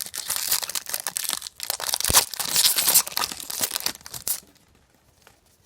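A trading-card pack wrapper being torn open and crinkled: dense crackling rustle for about four seconds, then it stops.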